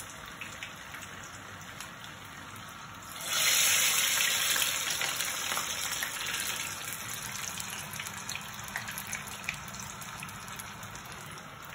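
Cassava vadas deep-frying in hot oil: a steady sizzle that jumps sharply louder about three seconds in, as fresh dough goes into the oil, then slowly settles back.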